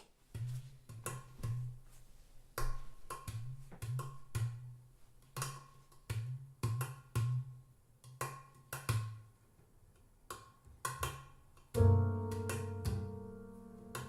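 Instrumental music played through JBL Studio 280 three-way floorstanding loudspeakers: short bass notes under crisp percussive hits, then a louder held chord of keyboard-like tones swells in near the end.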